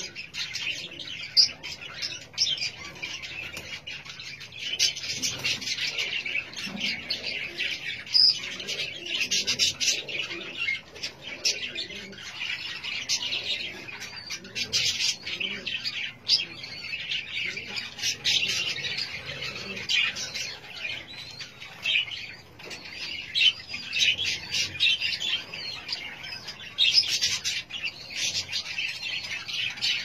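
Many caged birds chirping and calling at once in a dense, unbroken chatter, with sharp louder chirps standing out every second or so.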